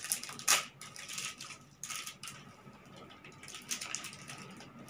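Plastic packaging of a set of gel pens being handled and opened by hand: irregular crinkling and crackling, with the sharpest crackles about half a second in and around two seconds in, then fainter rustling.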